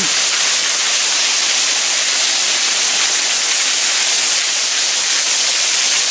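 Heavy rain pouring down, a loud, steady, even hiss of downpour on ground and paving.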